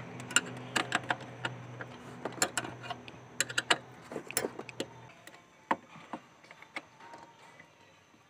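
Irregular sharp metallic clicks of a wrench working the mounting nut of a new brake master cylinder against the brake booster, a few to several a second, thinning out near the end. A faint low steady hum underneath stops about five seconds in.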